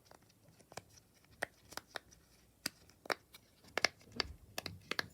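Silicone pop-it fidget bubbles being pressed, giving a dozen or so short, sharp pops at an uneven pace.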